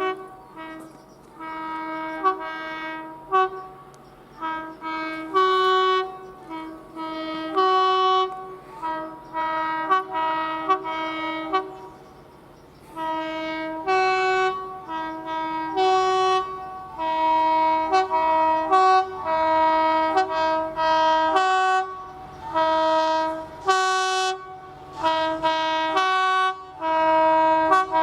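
Two-tone train horns sounding a rapid series of high and low blasts, switching back and forth between the two notes, with some notes held longer. Several soundings follow one another with short pauses between them.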